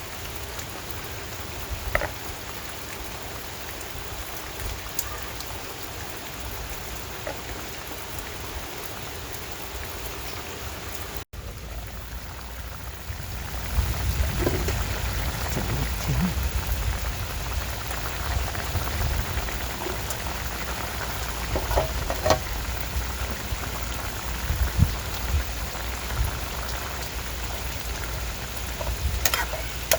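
Steady rain falling, with scattered drop ticks. About 11 s in there is a brief break, and from about 13 s the rain is louder, with a deeper rumble underneath.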